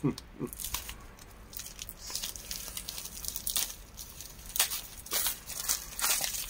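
Plastic packaging crinkling and tearing as a small, hard-to-open packet is pulled open by hand, in irregular crackles with louder ones about two, four and a half, five and six seconds in.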